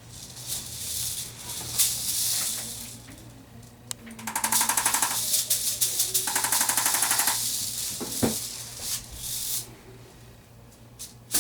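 Arthrostim handheld chiropractic adjusting instrument running, a very fast mechanical tapping rattle delivered in stretches, loudest in two bursts around the middle and stopping near the end. Its rapid light taps on the patient's bones are the adjustment itself.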